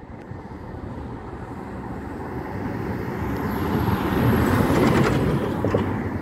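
Autocar WX64 side-loader garbage truck driving past, its engine and tyres growing steadily louder as it approaches, loudest about four to five seconds in, then easing a little as it moves away.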